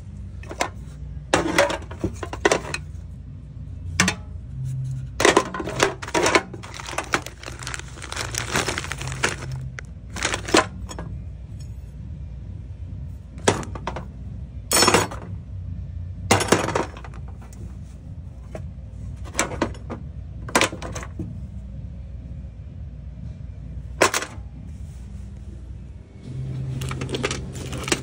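Metal bike tools and parts clinking and clanking as a hand rummages through a toolbox, in irregular bursts of clatter with short pauses between.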